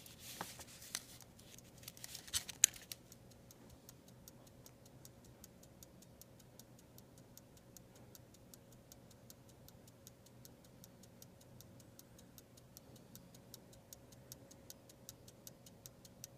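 Antique verge fusee pocket watch ticking with its movement open, fine quick ticks at a steady pace of about five a second. A few louder clicks come in the first three seconds.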